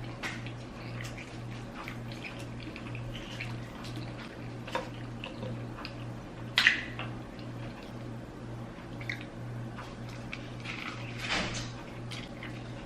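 Close-miked eating sounds: chewing with wet mouth clicks and smacks, the loudest smack about six and a half seconds in. A low pulsing hum runs underneath.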